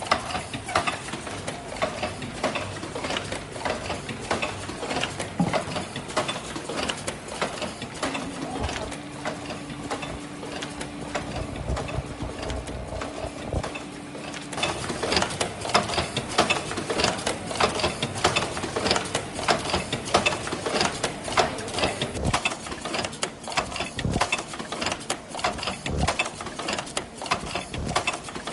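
Automatic disposable medical mask production machine running: a dense, rapid clatter of many small clicking and knocking mechanisms. A steady low hum joins in for several seconds in the middle.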